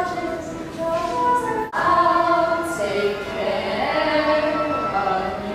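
Several voices singing together in held notes, with a sudden break about a second and a half in before the singing carries on.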